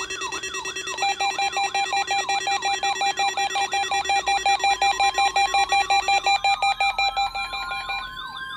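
Several weather alert radios sounding their alarms at once, set off by the NOAA Weather Radio weekly test alarm. A warbling tone sweeps about three times a second over rapid beeping and steady tones, and a slowly rising tone joins in the second half; some of the alarms stop near the end.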